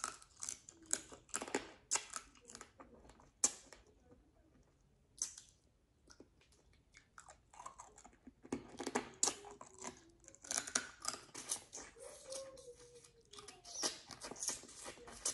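Close-miked chewing and mouth smacking while eating, quick clicky sounds in clusters with a pause of a few seconds in the middle.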